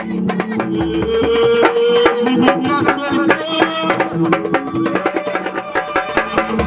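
Dakka Marrakchia music: hand drums beaten in a fast, dense rhythm, with a held melody over them.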